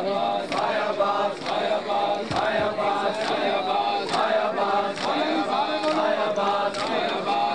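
Men chanting a mourning lament together while palms slap bare chests in matam, the slaps falling in a steady rhythm about once a second.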